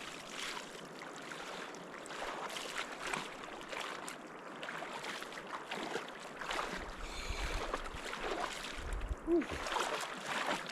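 Water splashing and sloshing in irregular strokes as a person washes in a shallow river.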